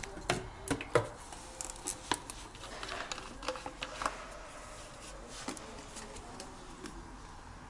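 Light clicks and taps of a metal teaspoon and small kitchen containers being handled while baking soda is scooped, sharpest in the first second, then sparser until quiet room tone near the end.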